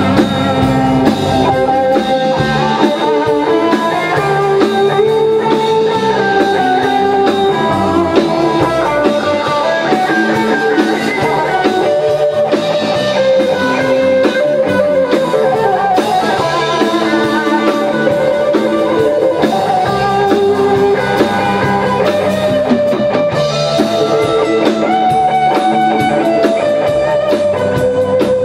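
A live rock band playing an instrumental passage: electric guitar, electric bass and drum kit together, loud and steady throughout.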